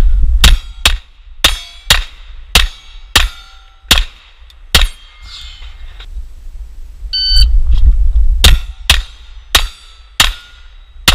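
Glock 34 9 mm pistol fired at steel plates: a string of sharp shots with the steel ringing, running for about five seconds. About seven seconds in, an electronic shot-timer beep starts another string of five quick shots, the last near the end.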